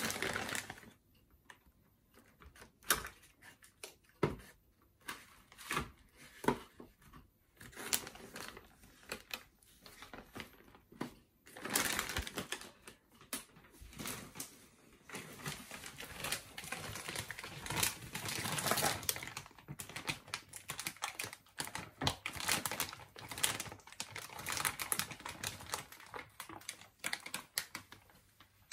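A large plastic zip-lock freezer bag being handled and packed with food: scattered clicks and taps at first, then longer stretches of plastic crinkling and rustling from about halfway through.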